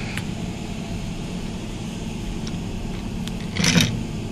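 A steady low background hum, with a brief noisy burst near the end.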